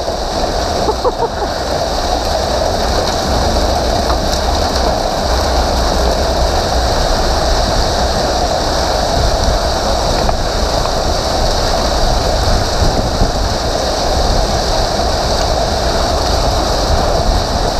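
Hailstorm: hail and heavy rain coming down hard in a dense, steady hiss.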